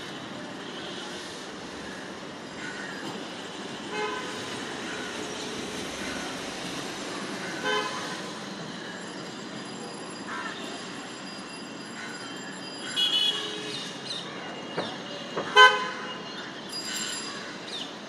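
Steady traffic background with several brief vehicle horn toots, the loudest near the end.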